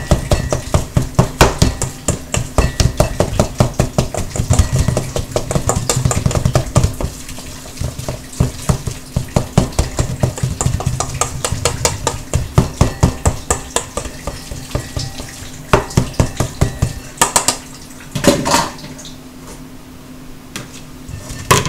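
A kitchen utensil clacking and scraping against a mixing bowl as ground turkey meatloaf mix is stirred and scraped from the bowl's sides, in rapid repeated knocks. The strokes thin out after about sixteen seconds, with a few single louder scrapes near the end.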